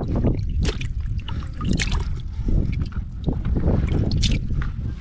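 Hands sloshing and turning whole fish, mariquitas (squirrelfish) and biquaras (grunts), in a basin of water as they are washed. The splashing and slapping is irregular, with wind rumbling on the microphone underneath.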